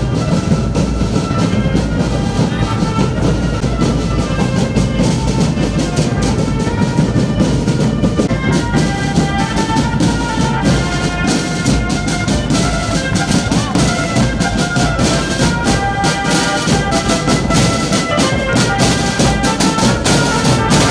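Marching band playing: a brass melody over steady snare and bass drumming.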